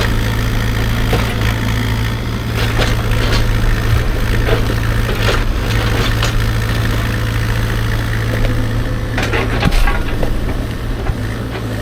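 Mini excavator's diesel engine running steadily, with scattered knocks and scrapes as the bucket works dirt and rock; the loudest cluster comes near the end.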